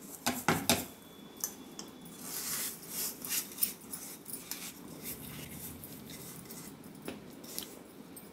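Granulated sugar emptied from a small bowl into a steel cup: a few sharp taps and clicks in the first second, then dry rustling and scraping as the sugar slides out and the bowl is shaken.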